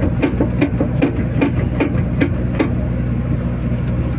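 XCMG mini skid-steer loader running, its engine humming steadily under a rapid, regular knocking about five times a second from the drive train. The knocking stops nearly three seconds in while the engine keeps running.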